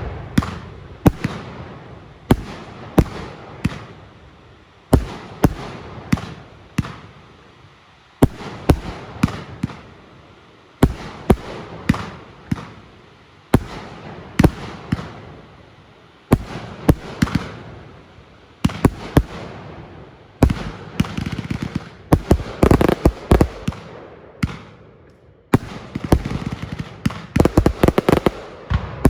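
Fireworks going off: sharp bangs in clusters every two to three seconds, each trailing away, with faster runs of crackling bangs about three quarters of the way through and near the end.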